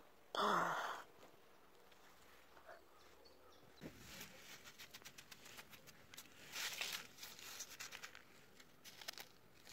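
A woman's short shout about half a second in, then soft, irregular crunching and scratching of damp sand and grit as a hand pats and presses it around wax number candles, loudest in the middle.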